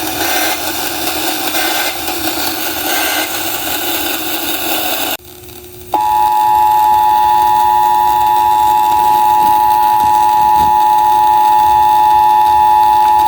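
Radio music cut off abruptly about five seconds in. After a brief near-pause comes the Emergency Alert System two-tone attention signal, the 853 Hz and 960 Hz tones sounding together, a steady unbroken beep that heralds an alert broadcast.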